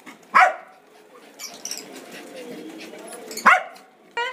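Pomeranian dogs barking: two sharp barks about three seconds apart, with a short yip near the end.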